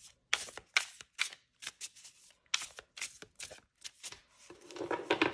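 A Hay House oracle deck being overhand-shuffled by hand: quick, irregular snaps and slaps of the cardstock, several a second. Near the end the snaps run into a denser rustle of cards.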